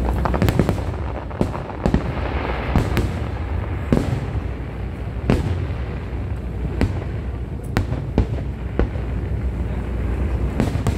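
Aerial fireworks bursting in a show: sharp bangs at irregular intervals of about a second, with a quick cluster of bangs at the start and a crackling hiss around two seconds in, over a steady low rumble.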